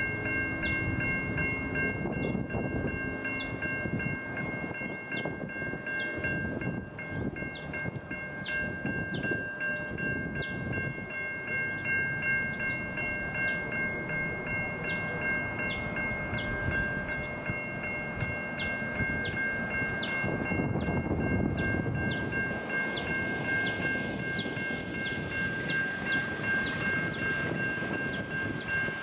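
Siemens Type 3 electronic crossing bells ringing continuously, a steady high multi-tone ring with a regular tick about once a second, while the crossing is activated. Under it runs a low rumble from a train on the tracks, which swells about 20 seconds in.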